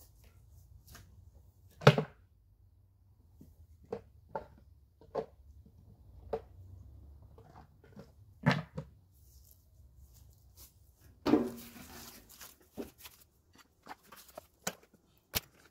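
Scattered knocks and thuds of wooden beekeeping gear being carried, set down and handled beside a hive, the loudest about two seconds in, again about eight and a half seconds in, and a heavier thud with a short rattle about eleven seconds in.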